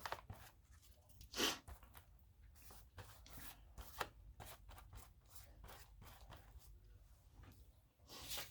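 Paper rustling and soft taps as collage-book pages are handled and turned, loudest about a second and a half in and again near the end.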